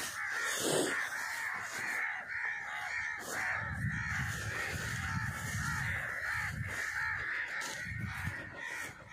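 Many birds calling at once in a continuous chorus, with low rumbling in the middle of the stretch.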